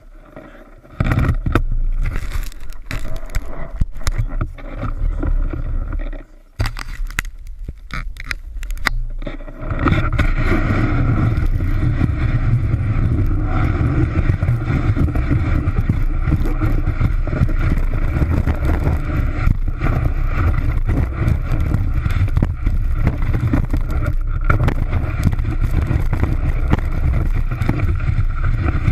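Snowboard sliding over snow, picked up by a camera mounted on the board: the base scraping across the snow, with wind on the microphone. It is uneven for the first ten seconds or so, with a short drop about six seconds in, then runs steady and loud once the board is gliding down the slope.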